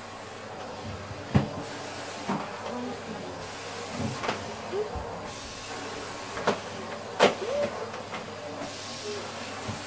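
Vacuum cleaner running steadily as its floor nozzle is pushed back and forth over a rug and floor, with several sharp knocks as the nozzle and wand bump against things.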